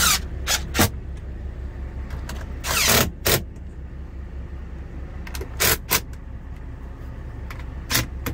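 Compact cordless impact driver giving short bursts as it drives screws up into a rooftop AC unit's ceiling mounting frame. The bursts come in small groups, with a longer run about three seconds in, over a steady low hum.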